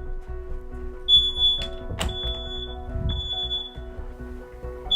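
Smoke alarm beeping high-pitched in its repeating three-beep pattern, heard from a bedroom as the door is shut, with a sharp knock about two seconds in. Soft background music runs underneath.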